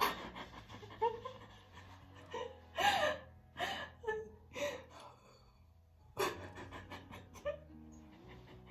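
A woman's gasping, shaky breaths and tearful laughter in short separate bursts, the sound of someone overcome with joy while crying. Soft music with steady held notes comes in near the end.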